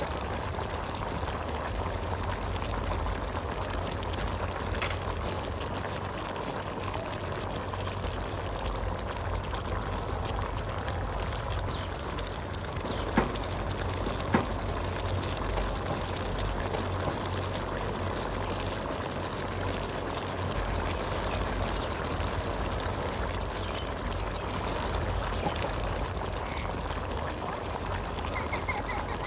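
Chicken cooking in a large stainless steel pot, a steady sizzling and bubbling. About halfway through come two sharp knocks a second or so apart.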